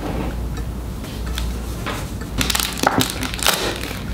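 Paper and plastic packaging of a temporary tattoo kit being handled, rustling and crinkling, with sharper crackles from about two seconds in.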